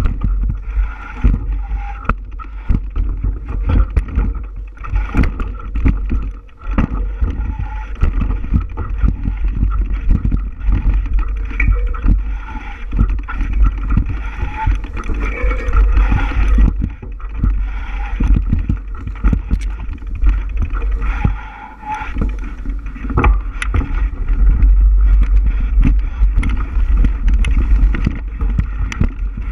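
Bicycle riding over a rough dirt trail: a heavy rumble on the microphone with frequent irregular rattles and knocks as the bike jolts over the ground.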